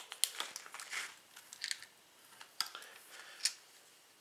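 BBs dropping into a Daisy Power Line 1200's BB reservoir, a scatter of small, sharp metallic clicks and ticks with short gaps between them as the reservoir fills.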